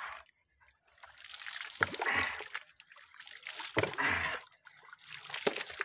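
Mugfuls of water poured over a person's head from a plastic mug during a bucket bath, splashing onto a concrete floor in separate pours about every two seconds.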